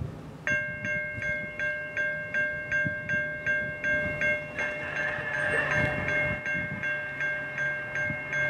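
Railroad grade crossing bell starting to ring about half a second in, striking steadily about three times a second, with a low rumble beneath. It is the crossing signal warning of an approaching train.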